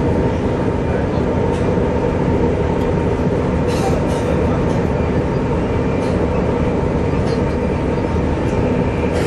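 Diesel multiple unit running steadily at speed, heard from inside the driver's cab: an even rumble of engine and wheels on the rails, with a few light clicks here and there.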